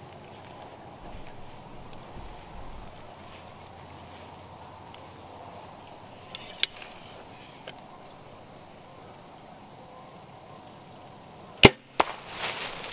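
Faint quiet outdoor background with a few light ticks, then near the end a bow shot at a whitetail buck: a sharp crack of the string on release, and about a third of a second later the smack of the arrow striking the deer, followed by a rising rush of rustling as the hit buck bolts through tall grass.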